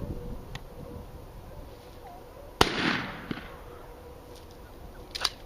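A single gunshot about two and a half seconds in: one sharp crack trailing off into a short echo. It is a shot at a rabbit, which the hunter judges a little behind and too far away.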